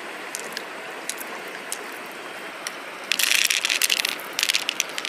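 Steady running river water with scattered sharp clicks; about three seconds in, two loud spells of rapid crunching clicks, the first about a second long, the second about half a second.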